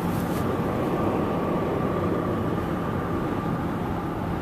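Steady road noise inside a moving car: a low rumble of tyres and engine with a faint steady whine on top.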